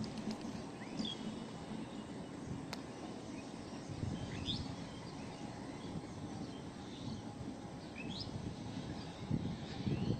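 A few short, rising bird chirps over a faint low rumble from a distant passenger train.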